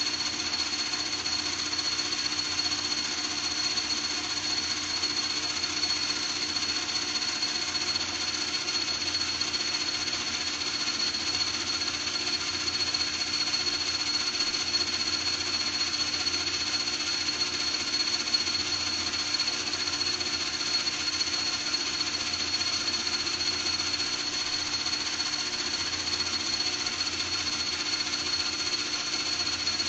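Continuous, steady power-tool or shop-machine noise with a high steady whine running through it.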